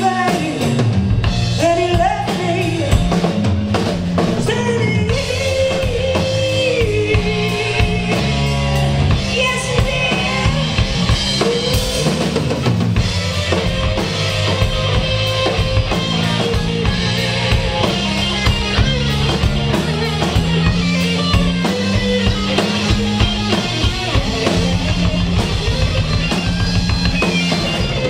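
Live band playing: drum kit, bass guitar and electric guitar, amplified on stage.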